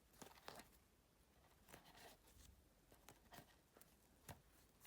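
Near silence with a few faint, short rustles and ticks from a crochet hook pulling thick cord through stitches.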